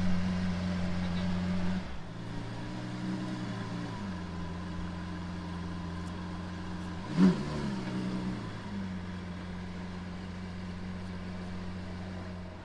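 Lamborghini Sián FKP 37's V12 engine idling steadily. Its note shifts about two seconds in, and it gives one short throttle blip about seven seconds in before settling back to idle.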